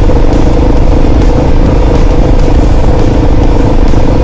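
Kawasaki KLR650 single-cylinder dual-sport motorcycle riding along a dirt road. It gives a loud, steady rumble with no change in engine speed.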